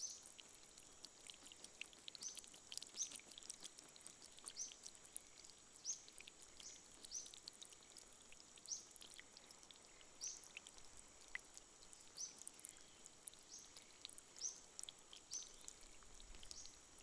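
Faint, short, high-pitched bird chirps repeating roughly once a second, over a soft hiss with scattered small drips.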